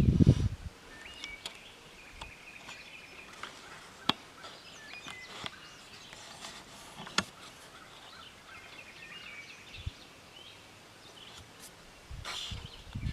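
Quiet woodland background with small birds chirping now and then and a few sharp clicks, after a loud low rumble that stops within the first second.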